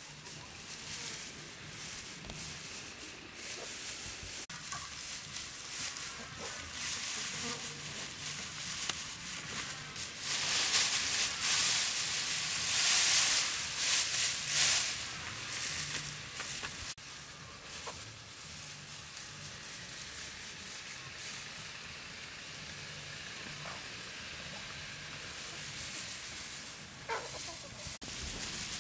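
Dry rice straw rustling and crackling as it is grabbed, shaken and packed by hand. It is loudest about halfway through, when big handfuls are pulled up and shaken out.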